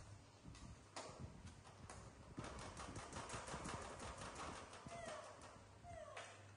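Hot oil crackling and spitting in a wok as potato strips fry, a dense run of small pops and clicks over a light sizzle, with metal tongs lifting the strips out.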